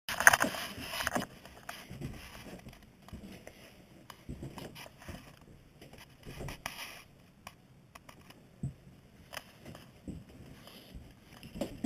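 Handling noise from a moving handheld camera: rustling, loudest during the first second, then scattered light clicks and knocks.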